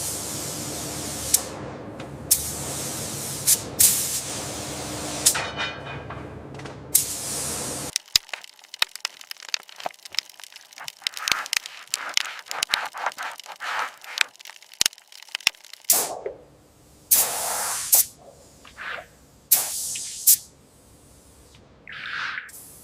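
Spray gun hissing steadily, with a few sharp pops, laying on a coating; it cuts off about eight seconds in. A long run of sharp cracks and crackles follows, then several short bursts of spray near the end.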